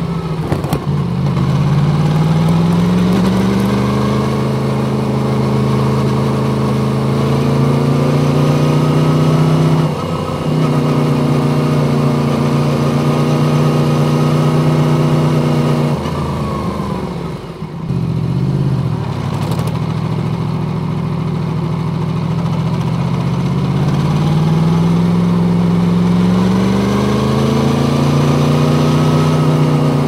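Yamaha MT-10's crossplane inline-four running through an Akrapovic exhaust, pulling up through the revs and holding them, with a short break about ten seconds in. It eases off for a moment past the middle, then climbs in pitch again near the end.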